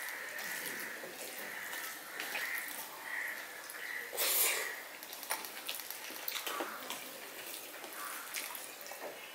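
Close-up eating sounds of rice with fried greens and fish curry eaten by hand: wet squishing as fingers mix the rice on a steel plate, a loud wet mouthful about four seconds in, then chewing with lip-smacking clicks.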